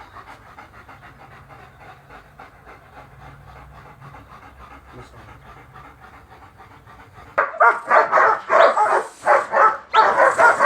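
Guard dog panting fast and steadily, then about seven seconds in loud, repeated barking breaks out.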